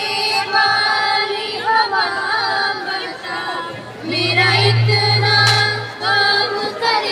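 A small group of girls singing together into microphones, holding long notes. A low steady hum swells up under the voices between about four and six seconds in.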